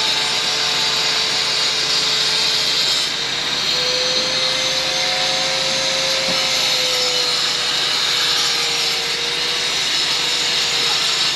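A steady mechanical drone over a hiss: one tone that drifts slightly up and down in pitch, the sound of a machine or motor running continuously.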